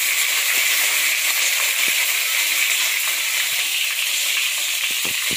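Curry leaves and bay leaves sizzling in hot oil in a pot on the gas flame: a steady, loud hiss with a few small crackles near the end.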